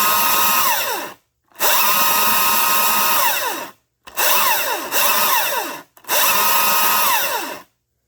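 Husqvarna 540i battery chainsaw run off-wood in short trigger pulls, about four in a row, its new 3/8 low-profile chain whirring around the bar. Each run spins up with a rising whine and winds down with a falling one when the trigger is released.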